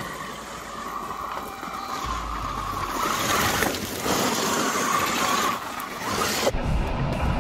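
Losi Super Baja Rey 2.0 RC truck's brushless electric motor, on 8S LiPo power, whining at speed as it drives in and passes close, with its tyres crunching and throwing gravel; the whine grows louder as it nears. About six and a half seconds in, the sound cuts off suddenly.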